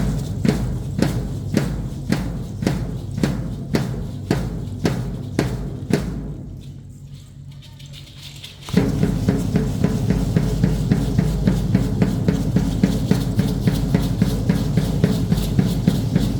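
Drumming for a traditional Mexican danza: a steady beat of about two strokes a second fades out about six seconds in. After a short lull, louder and faster drumming starts abruptly, at about three strokes a second.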